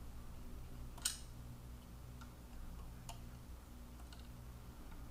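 Small metal clicks of a hex driver working the mounting screws of a drone drop mechanism as they are tightened down. There is one sharp click about a second in, then a few faint ticks about a second apart.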